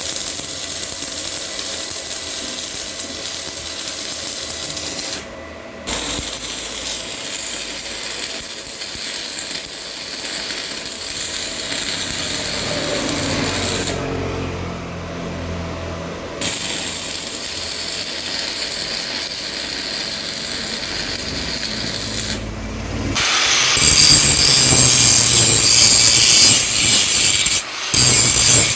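A power tool running steadily on a workpiece, stopping briefly a few times and louder and shriller near the end.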